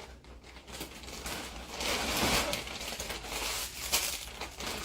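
Rustling and rubbing of a plastic vacuum storage bag and plush toys as the plushies are handled and stuffed into the bag, uneven and swelling about two seconds in.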